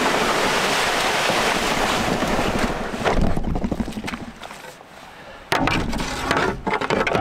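Wind rushing on the microphone, then a few sharp knocks and crackles as a canoeist steps out onto dry brush and sets the canoe paddle down by the bow.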